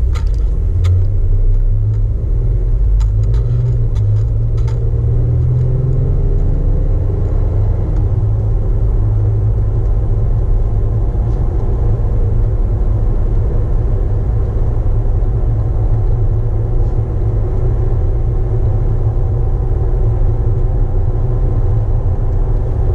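Jeep Wrangler JK running, a steady low rumble of engine and road noise, with the engine note shifting in pitch a few seconds in. A few faint clicks come in the first five seconds.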